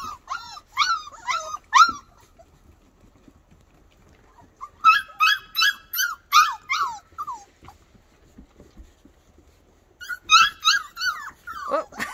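Four-week-old flat-coated retriever puppies giving short, high-pitched whining yelps, each falling in pitch, about four a second, in three runs: at the start, around five seconds in, and near the end.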